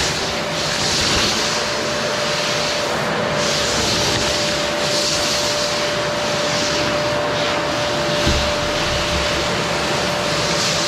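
Qilive vacuum cleaner running steadily, with a constant motor whine under a rush of air whose high hiss swells and fades every second or two as the suction changes.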